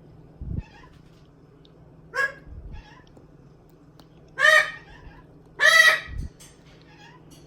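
Pet parrot giving three loud, harsh squawks, the second and third longer and louder than the first, with a few short low knocks in between.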